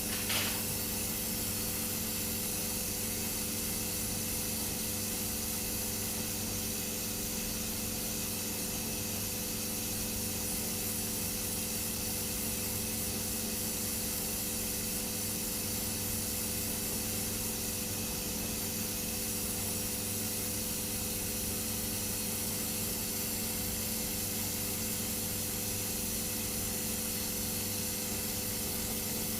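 Hydrogen-oxygen torch flame, fed by a water-electrolysis gas generator, hissing steadily as it heats the parts toward cherry red for silver soldering, with a steady hum underneath. A brief click comes about half a second in.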